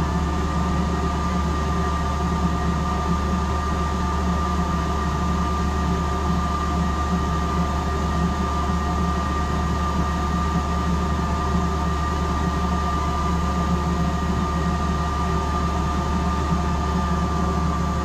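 Mabru SC7DC 12-volt 7,000 BTU marine air conditioner running, its blower pushing close to 200 CFM out of the discharge: a steady hum with a thin steady whine over a rush of air.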